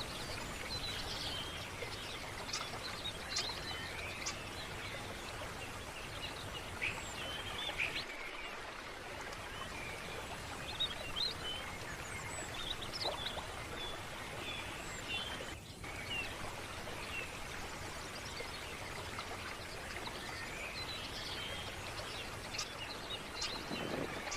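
Steady rush of flowing water, like a stream, with many short bird chirps and calls scattered over it. The sound drops out briefly twice, about eight and sixteen seconds in.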